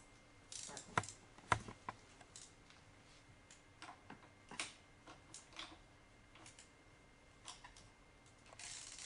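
Scattered clicks and light metallic taps of a hand wrench working the lower nuts of a Honda Grom's handlebar clamp. Two sharper knocks come about a second and a second and a half in, then irregular softer ticks.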